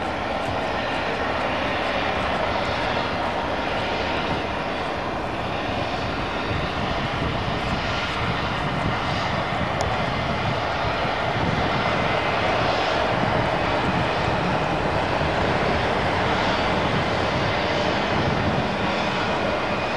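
Airbus A321 airliner's two jet engines running as it taxis: a steady rushing jet noise that grows a little louder about halfway through.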